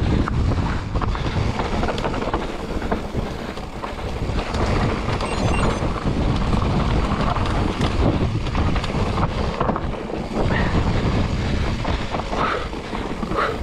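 Wind buffeting the microphone over the rumble and rattle of an electric enduro mountain bike riding down a dry dirt trail, with many small irregular knocks from the bumps.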